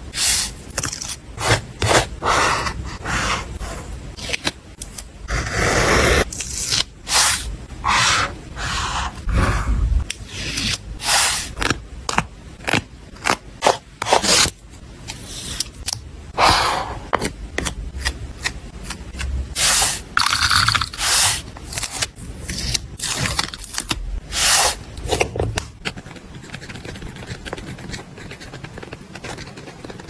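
Paper, stickers and tape being handled, peeled and rubbed down for a journal collage, in short irregular scraping strokes that grow quieter over the last few seconds.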